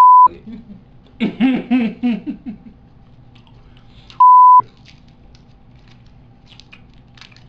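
Two loud, steady, high-pitched electronic bleeps, each about half a second long, one at the start and one about four seconds in, dubbed over the audio to censor words.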